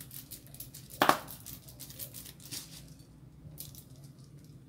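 A plastic shaker jar of grated Parmesan being shaken and tapped over a plate, giving a run of short rattling clicks, with one much louder knock about a second in.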